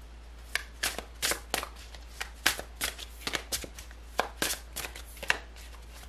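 A deck of tarot cards being shuffled by hand: a quick, uneven run of sharp card slaps, about three a second, starting about half a second in.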